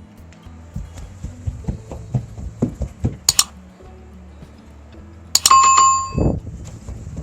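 A single loud bell-like ding about five seconds in, ringing briefly and dying away, over background music with a soft beat.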